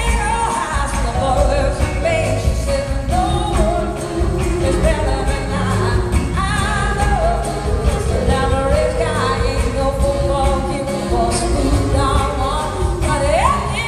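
Live band playing a soul song: a woman sings lead over electric guitar and drums.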